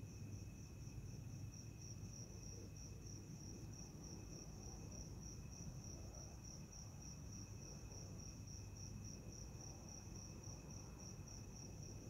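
Crickets and other night insects chirring together: one in a high, rapid, evenly pulsing trill, and a second in a steadier, lower trill beneath it.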